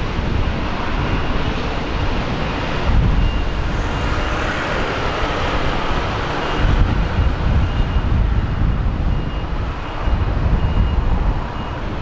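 Jet airliner engine noise that swells for a few seconds about a third of the way in, with heavy wind buffeting on the microphone throughout.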